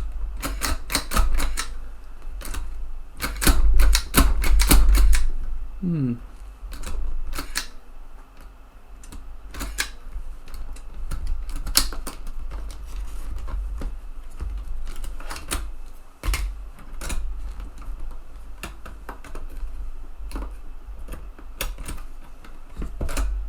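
Sharp plastic-and-metal clicks and clacks of a TEAC FD-235F 3.5-inch floppy drive's eject mechanism being worked by hand, in two quick runs of clicking within the first five seconds, then scattered single clicks, over low handling thumps. The repairer thinks the eject mechanism is sticky.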